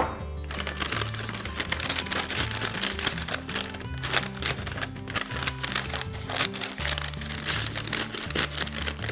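Brown paper bag crinkling and rustling as hands fold and close it, a dense crackle, over background music with a steady bass line.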